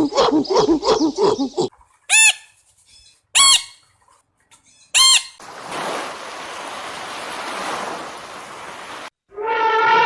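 A sequence of animal calls: a quick run of repeated calls, then three short, loud bird squawks over about three seconds, a steady hiss, and a long falling honk-like call near the end.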